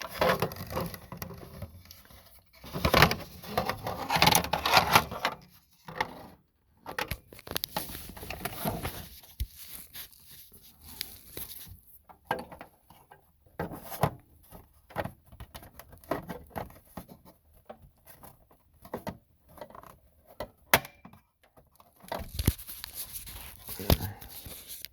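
Plastic overhead console lid of a 2004–2008 Ford F-150 being worked into its side grooves: irregular plastic clicks, scrapes and rattles with a rustle of hands, louder in stretches near the start and near the end.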